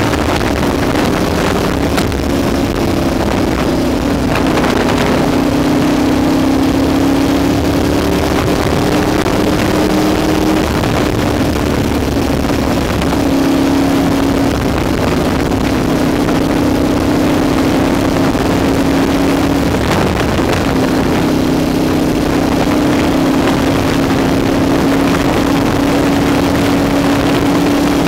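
Ducati 1098's L-twin engine pulling steadily at highway cruising speed, its note dipping and rising slightly a few times, with wind rushing over the microphone.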